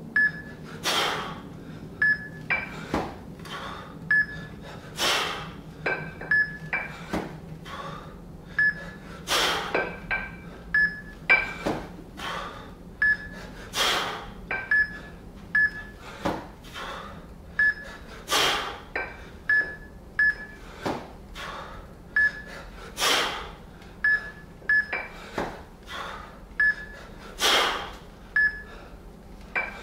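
Short electronic beeps, often in pairs, from a wrist-worn Fixometer, over the heavy, rhythmic breathing of a lifter doing two-arm kettlebell jerks, with a long, hard breath about every four and a half seconds, once per rep.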